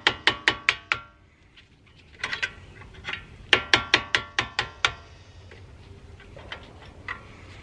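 Hammer tapping the end of a screwdriver in quick, light strokes, about six a second, in two main runs with a short metallic ring on each stroke, driving the pad retaining pin out of a Brembo brake caliper.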